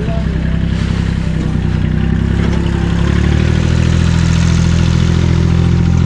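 An engine running steadily with a low hum, its pitch and loudness stepping up a little about three seconds in.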